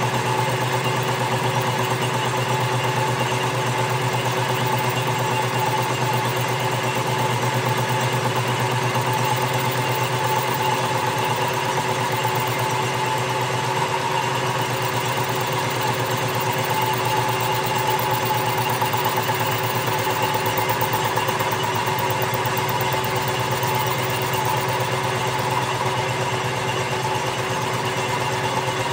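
Metal lathe running steadily at constant speed, a continuous machine hum with a fast, even rattle.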